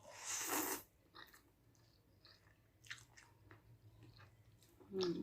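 A person eating a mouthful of instant ramen noodles. A short rush of noise at the start is followed by soft, scattered chewing clicks, and a brief voiced sound comes near the end.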